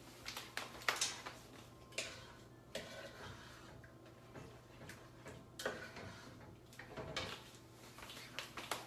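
Light, irregular clicks and taps of a spoon against a saucepan and other cookware, roughly one or two a second, as marinara sauce is stirred.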